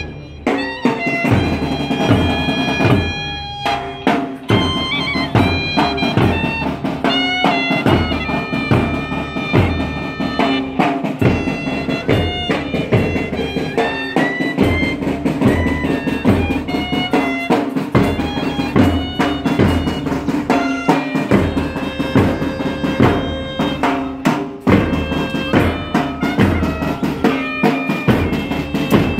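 School pipe band playing: bagpipe melody over a steady drone, with a bass drum and other drums keeping a regular beat.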